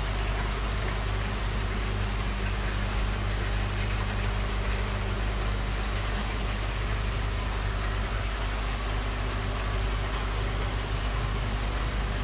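A steady machine hum with a low buzz and an even hiss, unchanging throughout.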